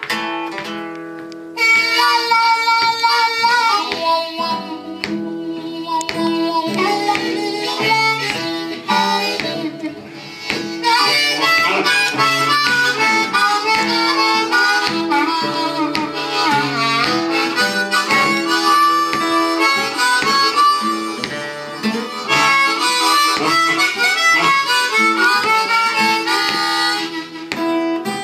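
Blues harmonica solo, with notes that bend in pitch, over a steadily strummed acoustic guitar. The harmonica comes in loud about a second and a half in.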